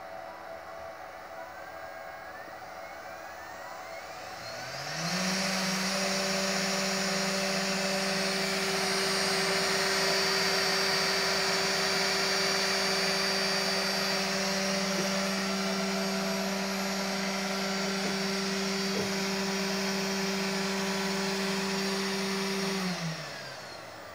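Electric spindle motor on a bench milling machine spinning up quickly about four seconds in. It then runs at a steady high speed, giving a constant hum with a high whine over it, and winds down shortly before the end.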